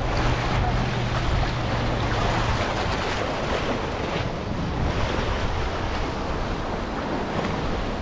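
Small sea waves lapping and splashing against shoreline rocks in soft, repeated swells, with wind buffeting the microphone. A low steady hum underlies the first two and a half seconds, then fades.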